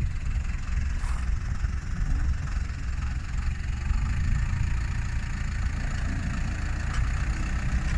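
Motorhome engine running steadily as the driver tries to drive out with the rear wheels mired in mud.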